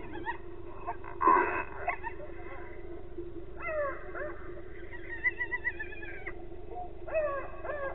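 Hyena calls: drawn-out wails that glide down in pitch about three and a half seconds in and again near the end, with a wavering high call in between. A brief noise comes about a second in, and a steady low hum runs underneath.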